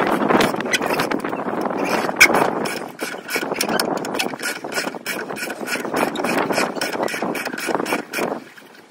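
Ratchet wrench clicking in quick back-and-forth strokes as a rusty tow bar bolt is wound undone, with a dense rasping noise under the clicks. It comes in spells, pausing briefly twice and stopping shortly before the end.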